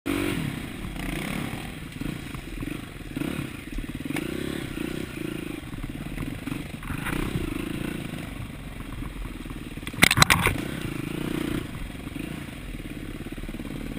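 Dirt bike engine running and revving up and down as the bike rides over rough trail, with rattling and scraping from the bike. A short burst of loud clattering knocks about ten seconds in.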